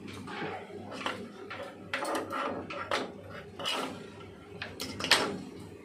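Hands handling projector circuit boards and parts on a workbench: a series of clicks, knocks and rustles, the loudest about five seconds in.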